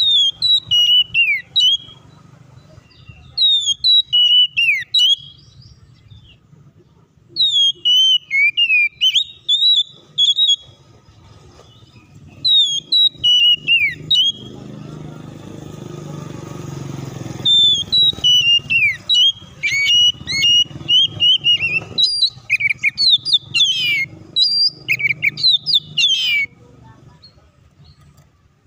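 Oriental magpie-robin singing in spells of sharp whistled phrases full of quick falling notes, broken by short pauses. A low rumble swells and fades in the pause around the middle.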